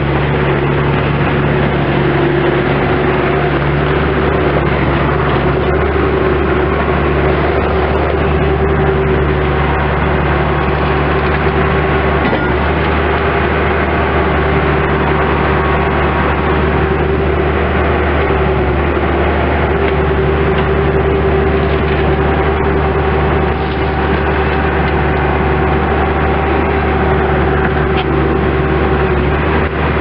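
Bobcat S185 skid steer loader's diesel engine running steadily and loud as the machine turns and raises its bucket, its pitch shifting slightly with the load now and then.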